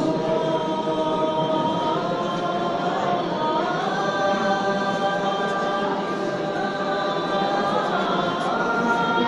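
A mixed group of young men and women singing together as a choir, holding long notes that step to a new pitch every few seconds.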